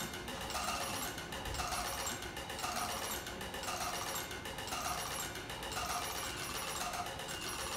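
Student-built robotic musical instruments playing a piece together, a note pattern repeating about once a second, with the clicking and whirring of their actuating mechanisms mixed in.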